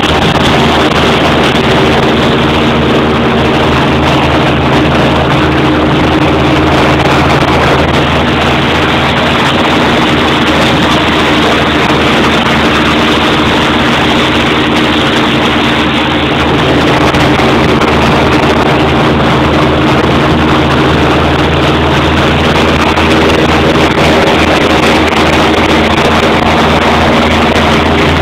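Airboat engine and caged propeller running at speed: a loud, steady drone with a stack of low, even tones beneath it.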